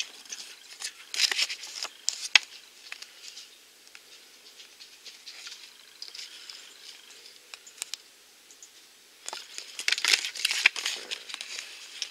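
Rustling and crinkling of a folded paper collector's card being unfolded and handled, with scattered sharp clicks. The rustling is louder about a second in and again around ten seconds in.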